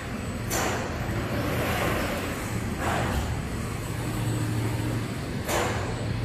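Automatic table screen printing machine running: a steady low hum with a short whoosh about every two and a half seconds, three in all.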